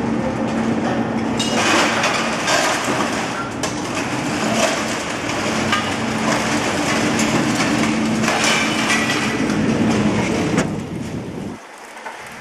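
Magnet overhead crane running with a steady mechanical hum and noise, with repeated clanks of scrap metal. The machinery cuts off about a second before the end, leaving a much quieter background.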